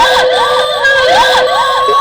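Ghost crying sound effect: several high voices wailing together, some holding long notes while others slide quickly up and down about three times a second, in an eerie, siren-like wail.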